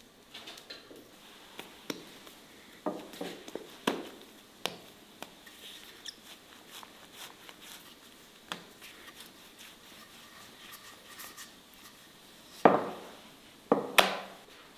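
Wooden rolling pin rolling out dough rounds on a stone countertop: soft scuffing with scattered light knocks, and two louder thumps near the end.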